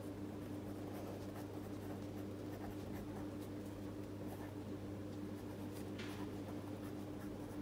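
Pilot V5 Hi-Techpoint 0.5 mm gel pen writing on Rhodia dot-pad paper: a faint, irregular scratching of the needle tip across the page.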